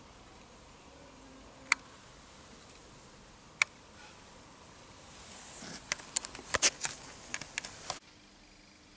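Handling noise from a handheld camcorder: two isolated sharp clicks, then a quick run of clicks and rustling as the camera is swung about, which cuts off abruptly near the end.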